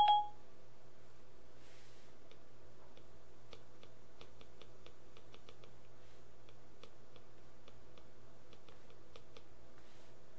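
A stylus tapping and ticking on a tablet screen while handwriting, heard as a string of faint, irregular light clicks over a steady low hum. There is one sharper click right at the start.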